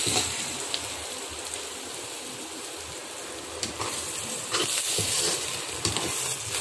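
Chopped onions sizzling steadily as they fry in oil in a pan. About halfway through, a steel spoon starts stirring them, scraping and clicking against the pan.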